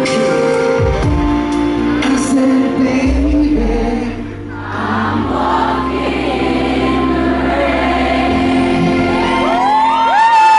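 Live pop band performing with acoustic guitar, several male voices singing long held notes. Near the end, the audience starts screaming and cheering as the song closes.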